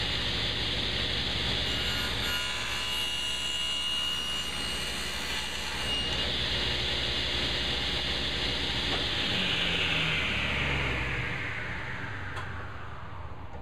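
Table saw running as a board clamped in a tenon jig is pushed through the blade, cutting a tenon cheek. About nine seconds in, the saw's whine begins falling steadily in pitch as the blade spins down.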